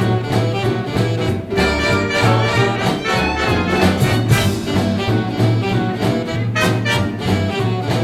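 Big band swing music: saxophones and brass playing over a steady bass line and a regular beat.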